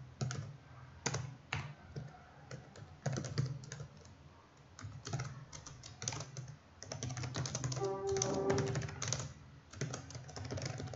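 Computer keyboard typing, irregular runs of keystrokes that come faster and denser between about seven and nine seconds in, with a brief pitched tone about eight seconds in.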